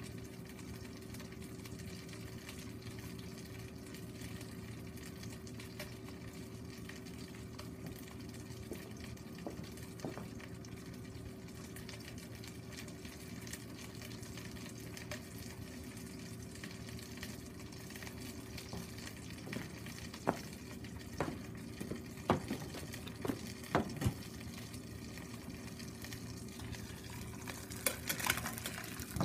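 Chicken pieces sizzling steadily in oil in a frying pan over a charcoal shichirin, with a few sharp pops in the second half. Near the end comes a metallic clatter as the pan is lifted off the wire grate.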